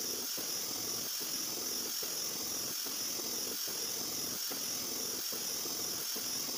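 Hartford LG-1000 vertical machining centre milling a slot with an end mill: a steady high hiss over lower machine noise that dips briefly about every 0.8 seconds.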